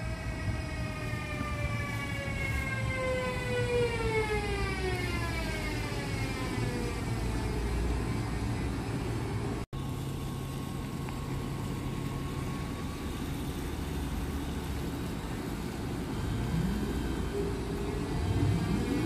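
Siemens Vectron electric locomotive slowing to a stop, its traction-motor whine falling steadily in pitch over about eight seconds. A low steady hum follows while it stands, after a momentary dropout about halfway. Near the end the whine rises again as the locomotive starts to pull away.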